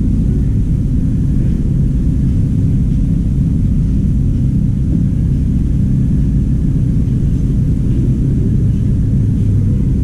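A machine running with a steady low hum and rumble that stays even throughout.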